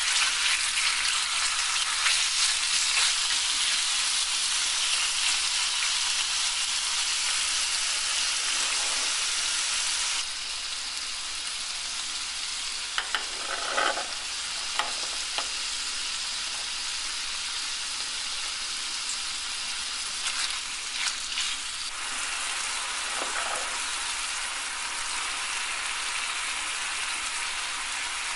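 Diced chicken breast sizzling steadily in hot oil in a nonstick skillet, in the first stage of frying while still raw, with a few short scrapes of a spatula stirring the pieces. The sizzle drops a little about ten seconds in.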